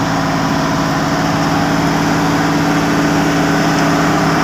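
Diesel engine of road-paving machinery running steadily at constant speed.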